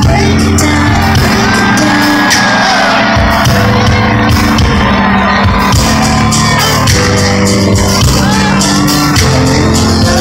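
Live R&B/pop concert music played loud through an arena sound system, with heavy sustained bass notes and a sung vocal line over them.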